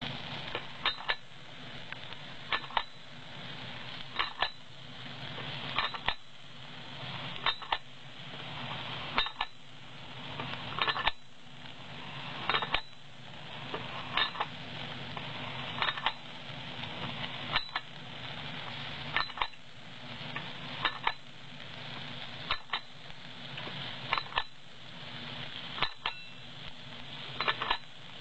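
Automatic paddu (rice appe) making machine running: a sharp metal clink, often doubled, repeats evenly about every 1.7 seconds over a steady mechanical hum.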